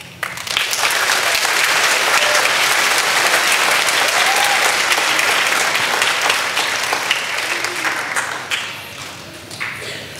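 Audience applauding, starting right away and fading out about nine seconds in.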